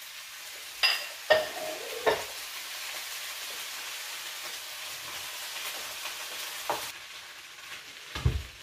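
Beans and spices sizzling in a hot frying pan as they are stirred with a spatula, with a few sharp clinks and scrapes of the utensil against the pan about a second in. The sizzle fades near the end, and a low thump follows.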